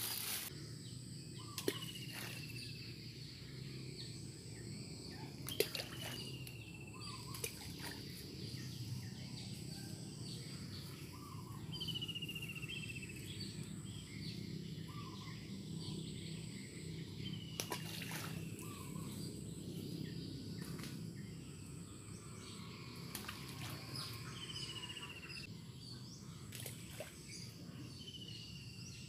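Outdoor ambience: a bird repeats a short falling call every five or six seconds over a steady high insect drone. A few brief sharp knocks come through, the loudest about five and a half seconds in.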